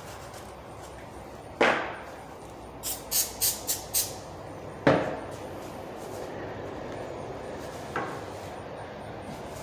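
Sharp shots of a nail gun driving reinforcing nails into a freshly glued crown-molding miter: two loud cracks about three seconds apart and a fainter one near the end, with a quick run of five short hisses between the first two.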